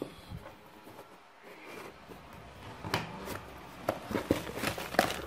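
A cardboard product box being handled and opened, with cardboard sliding and rubbing. From about three seconds in come a series of sharp clicks and taps as the lid flap is lifted.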